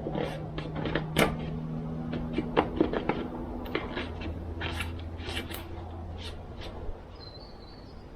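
Clicks, taps and clatter of tools and chainsaw parts being handled during reassembly, a dozen or so sharp knocks spread irregularly, loudest in the first half. A steady low hum runs underneath.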